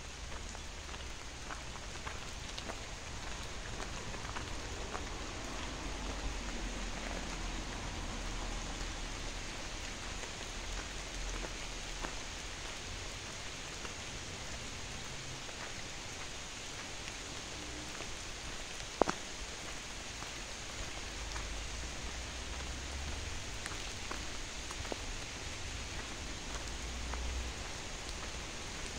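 Steady rain falling, a continuous hiss sprinkled with individual drops tapping close by, with one sharper tap about two-thirds of the way through.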